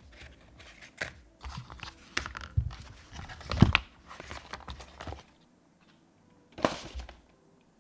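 Packaging being handled and pulled apart: crinkling, crunching and tearing of wrap, in irregular bursts for about five seconds, then one more short rustle near the end.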